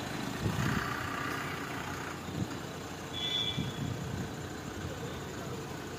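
Escorts pick-and-carry crane's diesel engine running as it hoists a load, with a hiss about half a second in and one short high beep just after three seconds.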